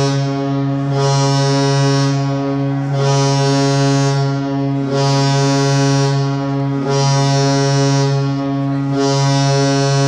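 St. Louis Blues goal horn at Enterprise Center blowing one long continuous blast after the game: a deep, steady horn tone that wavers slightly about every two seconds.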